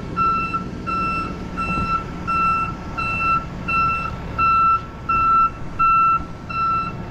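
Truck back-up alarm beeping steadily, a single-pitch beep a little under two times a second, over the low, steady running of the truck's engine as the flatbed carrying a Putzmeister concrete pump reverses off a tilted tow-truck deck.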